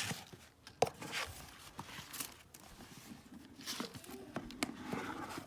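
Gift wrapping paper rustling and tearing as a wrapped box is opened, with a few sharp clicks and knocks of handling.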